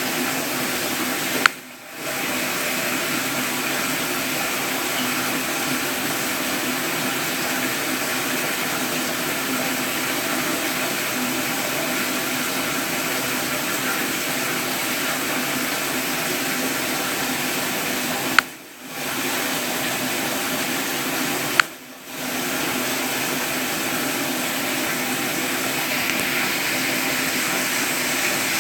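Steady rush of running water, broken by three sharp clicks, one near the start and two later about three seconds apart, each followed by a half-second drop in the water sound.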